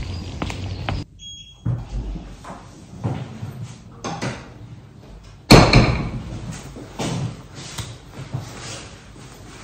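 Indoors, a door shuts with a loud bang about five and a half seconds in, amid the rustling of a coat and bag being handled. A short electronic beep sounds about a second in.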